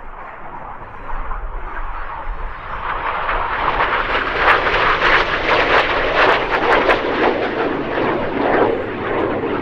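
BAE Hawk T1 jets of the Red Arrows passing low overhead. Their turbofan roar builds from about a second in and is loudest through the middle.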